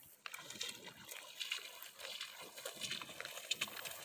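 Footsteps through tall, wet shoreline grass. There is irregular rustling and crackling of stalks against waders, starting a moment in.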